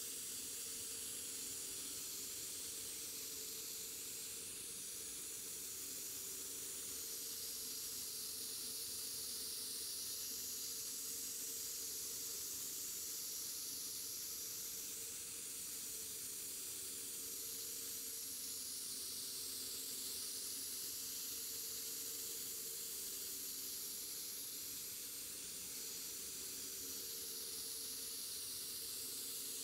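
Compressed air hissing steadily through a gravity-feed spray gun as it sprays clear coat onto a car roof.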